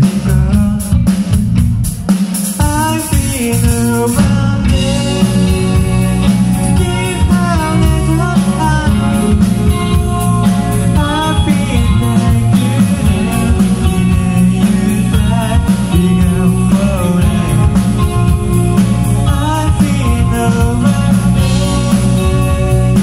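Rock band playing live: electric guitar, bass guitar and drum kit, with a male lead vocal singing over them from about two seconds in.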